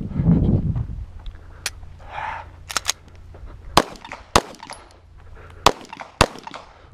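Pistol shots fired one at a time at irregular spacing, several in the middle and the four loudest in the second half, with a low rumble at the very start.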